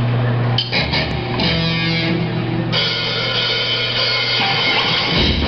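A live rock band plays electric guitars, bass and drum kit with cymbal crashes. The band kicks in with hits about half a second in, over a steady low drone.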